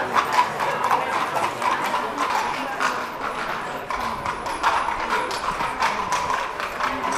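Hooves of a pair of carriage horses clip-clopping on the street as the horse-drawn carriage passes close by, a quick, irregular run of clicks.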